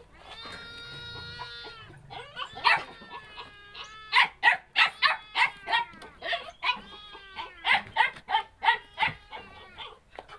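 A dog giving one long high whine, then barking repeatedly in short high barks, about two or three a second.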